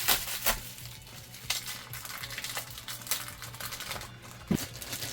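A mailed package being handled and opened by hand: crinkly rustling with scattered sharp clicks and taps, and one heavier knock about four and a half seconds in.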